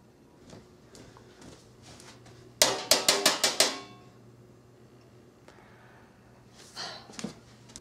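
Large metal spoon banged rapidly against a metal baking sheet: about seven loud, ringing clangs in just over a second.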